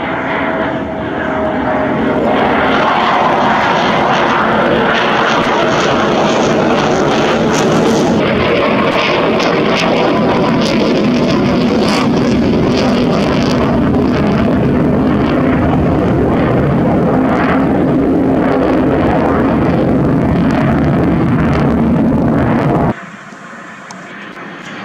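Eurofighter Typhoon's twin EJ200 turbofan jet engines, loud and steady as the fighter flies overhead. The noise swells about two seconds in and drops off suddenly near the end.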